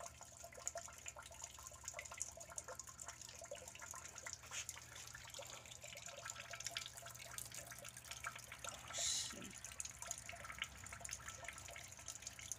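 Water pumped up a PVC hydroponic tower raining down inside it, a faint irregular patter of drips and trickles splashing into the bucket below. There is one brief louder burst about nine seconds in.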